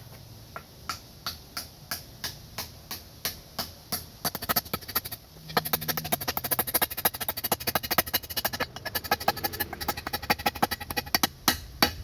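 A hammer driving a wooden wedge into the top of an axe handle, seating the handle in the head's eye. Strikes come about three a second at first, then quicker and louder from about four seconds in.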